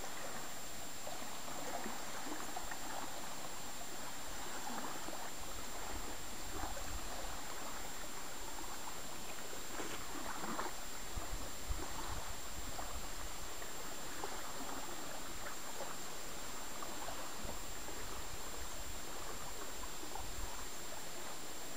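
Small waves lapping and splashing steadily on a gravel lakeshore, in small irregular splashes.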